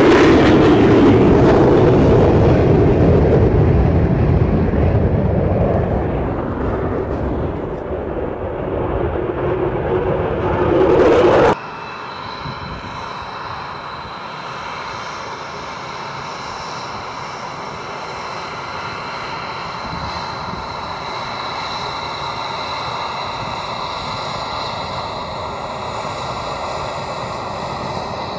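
F-22 Raptor's twin F119 turbofans: a loud jet roar that fades over several seconds, swells again and cuts off abruptly about eleven seconds in. Then a steady, quieter jet-engine whine with a high tone over a low rumble, from an F-22 taxiing at low power.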